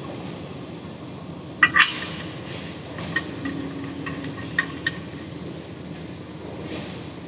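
A few sharp clicks and knocks over a steady background hum: two close together about one and a half seconds in, then scattered ones a little later.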